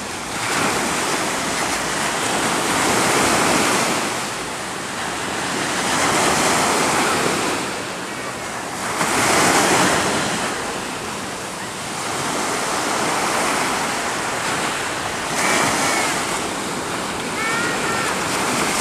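Ocean surf breaking and washing up the beach, swelling and falling in surges every few seconds.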